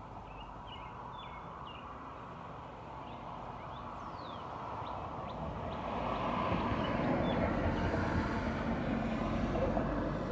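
Outdoor background before a siren test: a few short bird chirps, and a steady rushing noise that grows louder about halfway through and then holds. No siren tone is sounding yet.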